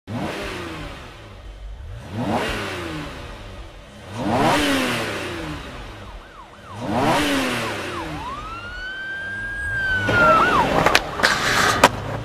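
Cars speeding past one after another, about every two seconds: each a swelling whoosh with the engine pitch climbing and then dropping away as it goes by. Later a siren-like tone rises and falls, and a quick run of sharp clicks comes near the end.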